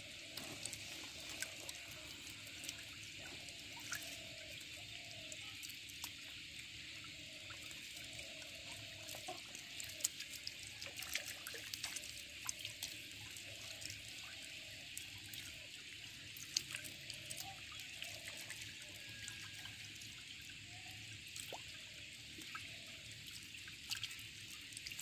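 Water trickling and dripping, with scattered small wet clicks and splashes as hands scoop small fish out of a net into a bowl.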